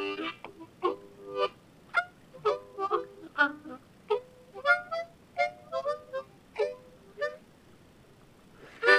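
C diatonic harmonica played in short, halting single notes and chords while practising tongue blocking. The notes stop about seven seconds in, and a loud held chord starts just at the end.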